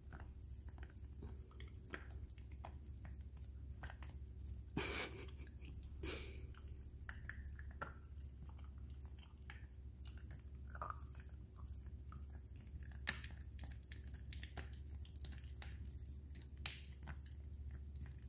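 A small dog gnawing and chewing on a hand-held chew, with scattered small wet clicks and crunches, a couple of brief noisier bursts about five and six seconds in, and two sharper clicks in the second half.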